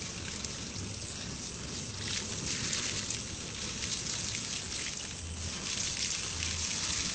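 Water poured from a bucket splashing onto a burning gas cylinder, over a steady rushing noise from the gas flame at the valve. The water does not put the gas fire out.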